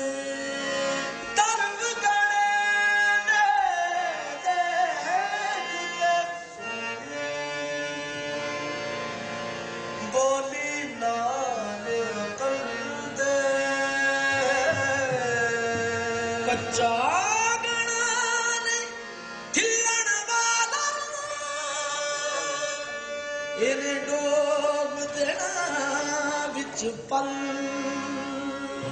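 Live qawwali: the lead and second singers take turns with long, sliding, ornamented vocal lines over sustained harmonium.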